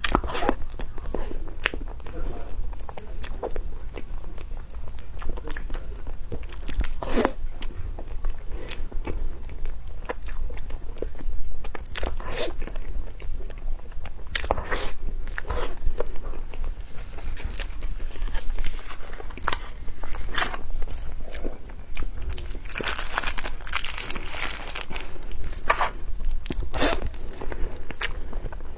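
Close-miked eating: a person biting and chewing food, with many short crunchy clicks, and a denser stretch of crackly noise about three-quarters of the way through.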